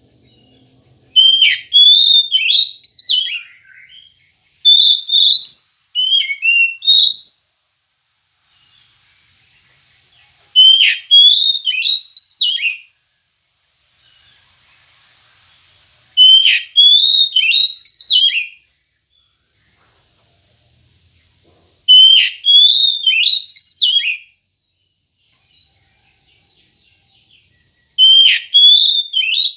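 Oriental magpie-robin singing: six loud phrases of clear whistled, sharply sweeping notes, each phrase about two to three seconds long and repeated every five to six seconds, with short quiet pauses between.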